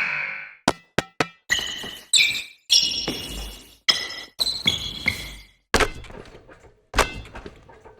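Basketball sounds: a dozen or so irregular sharp thuds and bangs, several with a short ringing tone after them.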